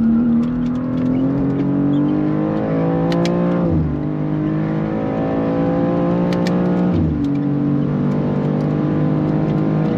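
BMW G87 M2's twin-turbo 3.0-litre inline-six, heard from inside the cabin, accelerating hard. The engine note rises steadily and drops sharply at an upshift about four seconds in. It climbs again to a second upshift about seven seconds in, then pulls on.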